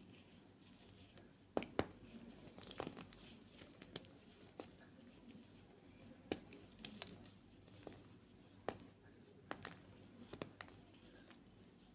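White reformed gym chalk being crushed: quiet, irregular sharp crunches and snaps, about a dozen, with soft crumbling between them.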